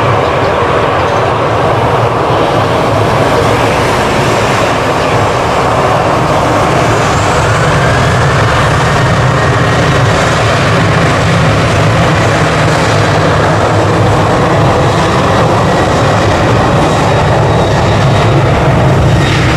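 Boeing 737-800's twin CFM56 jet engines at takeoff power during the takeoff roll. A loud, steady rumble, with a faint whine that rises slightly in pitch about halfway through.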